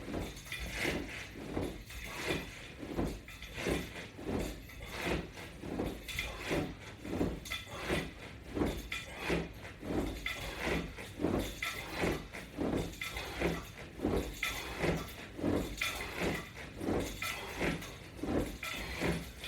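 Repeated sit-up crunches against a Latch Bar strap attachment, the strap hardware creaking and clinking once with each rep in a steady rhythm of about one and a half a second.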